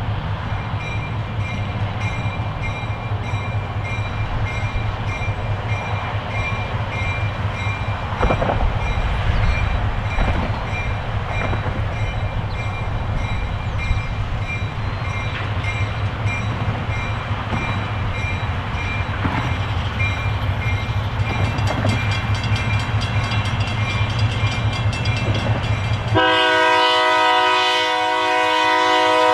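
Diesel locomotive running steadily with a low rumble and occasional knocks. Near the end a multi-tone locomotive horn blows for about three seconds.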